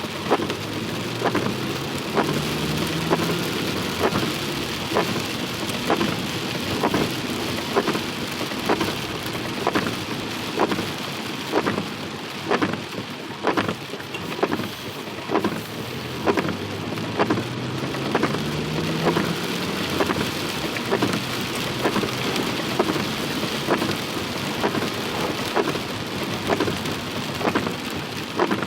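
Heavy rain falling steadily, a dense hiss, with a regular short tick about one and a half times a second.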